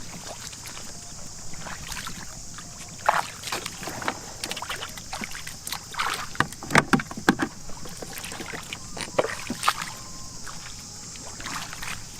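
Shallow water splashing and sloshing in irregular bursts as hands and legs move through a flooded field while fishing by hand, busiest about halfway through.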